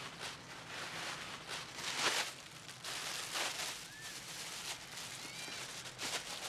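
Rustling and handling noises in irregular bursts, the loudest about two seconds in, with a few short bird chirps near the end.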